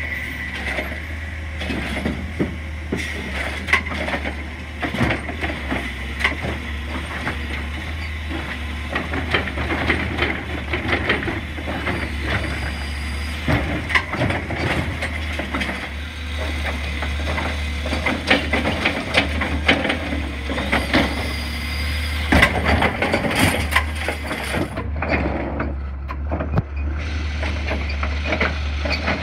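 Automated side-loader garbage truck's engine running steadily, with repeated clanks and knocks from its mechanical arm as it grabs, lifts and empties wheeled trash carts.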